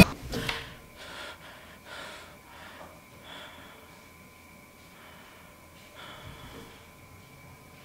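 A person breathing heavily, with quick soft breaths about once a second that grow quieter over the first few seconds and one or two more breaths near the end.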